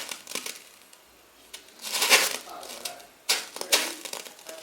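Bubble wrap crackling and popping, touched by a red-hot metal ball, in a few short uneven bursts: a sharp one at the start, a longer crackle about two seconds in, and two more near the end.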